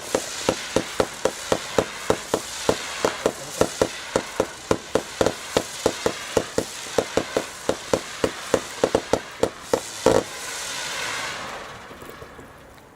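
Jorge 'Pirania' low-noise firework cake firing its shots in quick succession, a soft pop about three or four times a second over a steady hiss. A louder shot comes about ten seconds in, then a fading hiss and crackle as the cake finishes.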